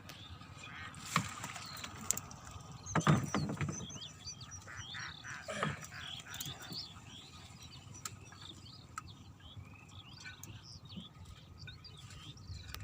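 Birds chirping in quick, scattered calls, with a few knocks or splashes in the water about a second in, at three seconds (the loudest) and again after five seconds.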